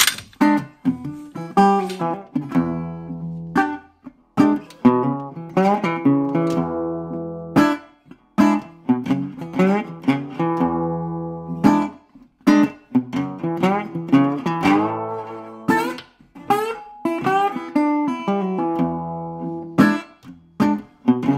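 Background music played on acoustic guitar: plucked notes and strummed chords that ring and fade over a low bass line.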